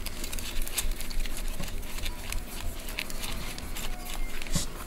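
A stack of trading cards being sorted through by hand: a run of light clicks and rustles as the stiff cards slide and are shifted from hand to hand.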